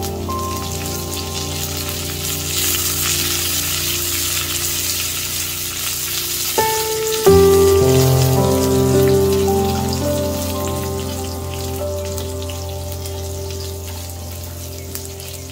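Hot oil sizzling and spattering in a steel pot as a tempering of seeds, dried red chillies, garlic and fresh curry leaves fries. The sizzle is strongest in the first half and dies down later. Instrumental background music plays throughout.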